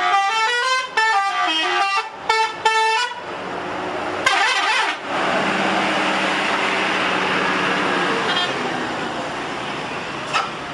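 Telolet multi-tone bus air horn playing a melody of short stepped blasts for about three seconds, then one brief blast about four seconds in. A steady vehicle rush follows as the bus runs on.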